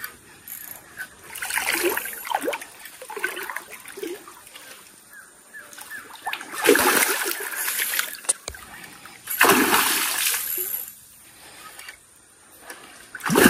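A hooked trairão (giant wolf fish) thrashing at the surface of a shallow creek, with several bursts of heavy splashing and quieter spells of trickling water between; the loudest splashes come about halfway through and again around three quarters of the way in.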